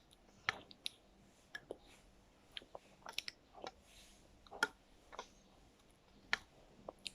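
Someone eating yogurt: small wet mouth clicks and smacks, irregularly spaced, about a dozen.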